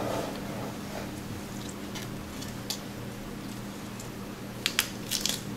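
Lettuce leaves handled and laid onto a burger bun: faint crisp crinkles and a few soft clicks, the loudest cluster near the end, over a steady low hum.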